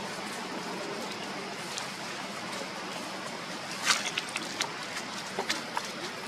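Steady outdoor hiss, then from about four seconds in a run of sharp crackles and clicks as young long-tailed macaques tussle on dry leaves and grass.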